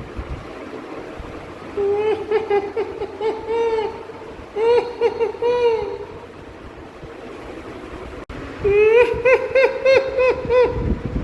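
Three runs of short, pitched calls, several a second, each note rising and then falling, over a steady hiss; a brief click falls just before the last run.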